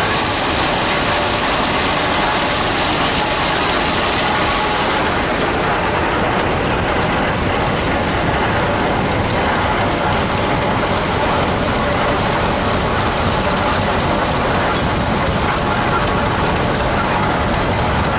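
Antique farm tractors passing at parade pace, their engines running with a steady mechanical clatter and rattle.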